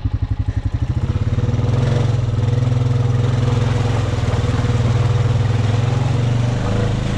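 Honda Rubicon ATV's single-cylinder engine puttering slowly at first, then picking up under throttle about a second in and running steadily as the four-wheeler rides on.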